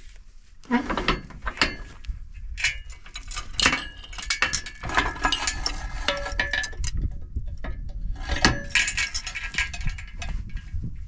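Steel chain rattling and clinking against the steel drawbar and jack stand of a manure spreader as it is handled, with short metallic rings. The clinking comes in spells, with a pause about seven seconds in, over a low rumble.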